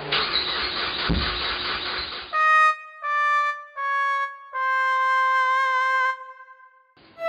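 About two seconds of engine cranking noise cut off abruptly, then a comic 'sad trombone' sound effect: four descending brass notes, wah-wah-wah-waaah, the last one long and wavering.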